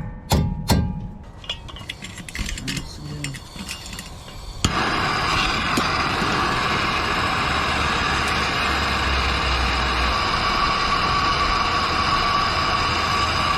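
Two hammer blows on metal, then light metal clinks, then a handheld gas torch lit about five seconds in, giving a steady hiss with a whistling tone as it burns.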